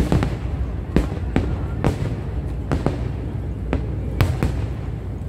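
Aerial fireworks shells bursting in a rapid, irregular barrage: a dozen or so sharp bangs over a continuous low rumble of more distant bursts and their echoes.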